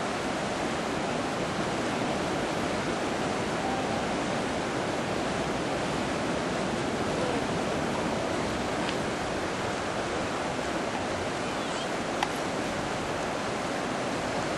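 Whitewater of a river rapid rushing steadily, a continuous churning roar of falling, breaking water.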